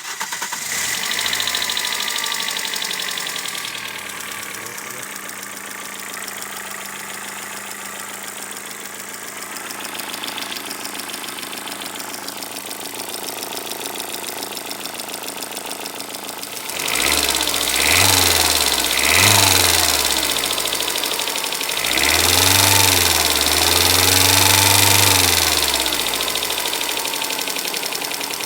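Toyota Corolla 4ZZ-FE 1.4 L inline-four idling with a knock from the cylinder head. It is revved in two short blips about two-thirds through, then held up for a few seconds. With the timing chain now quiet, the owner puts the knock down to wrongly set valve lifters, some valves tight and some with too-large clearances.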